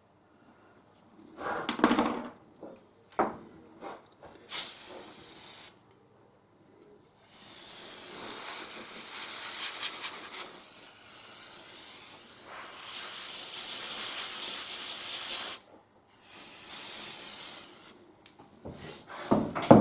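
Moulding sand being worked and cleared from a sand-casting mould: a few short scrapes, then long hissing sweeps.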